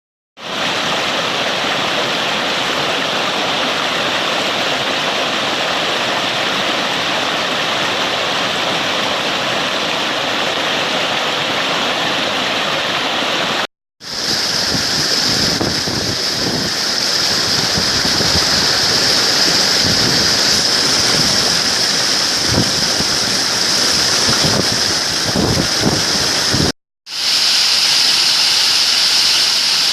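Waterfall: water rushing steadily, in three stretches divided by short silent cuts about 14 and 27 seconds in.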